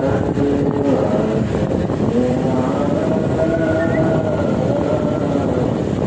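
Motorcycle engine running while riding, its pitch sliding up and down as the throttle changes, over steady wind and road noise.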